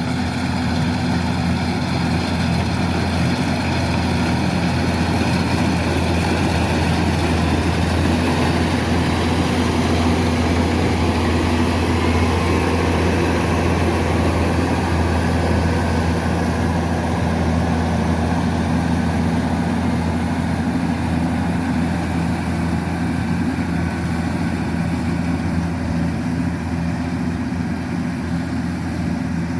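Kubota DC-105X combine harvester's diesel engine running steadily under load, a constant low hum with the harvester's machinery noise over it.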